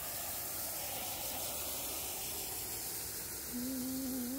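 Steady hiss of a water jet spraying, hosing down and cleaning a dog house. A brief low hum joins it about three and a half seconds in.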